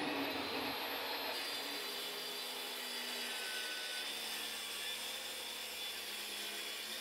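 Festool TS55 plunge-cut circular saw, mounted under a table, running and cross-cutting a clamped wooden board as it slides through. Its motor whine winds up right at the start, then holds steady under the cutting noise.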